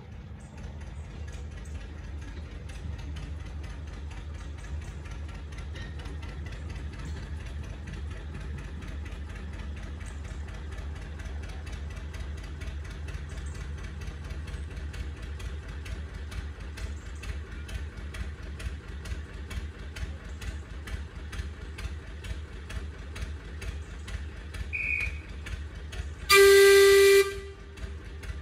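A small narrow-gauge diesel locomotive's engine running with a steady low beat, then a loud horn blast of about a second near the end.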